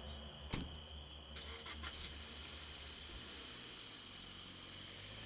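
A sharp knock about half a second in, then a car engine starting with a quick run of clicks and settling into a steady run.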